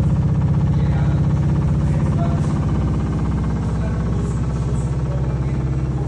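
LG washing machine running: a steady low hum with a fast, even rattling pulse.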